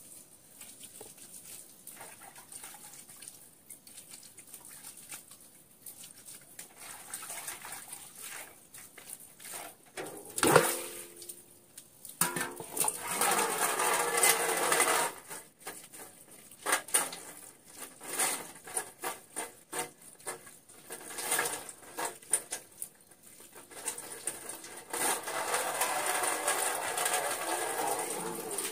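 Water sloshing and splashing in a large metal washbasin as something is washed by hand, with irregular knocks of the metal. About a third of the way in, a sharp knock on the basin rings briefly.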